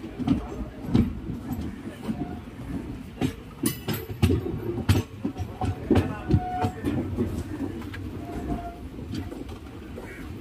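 Passenger train running on the rails: a low rumble with uneven clattering knocks of the wheels over rail joints, heaviest through the first two-thirds and easing near the end.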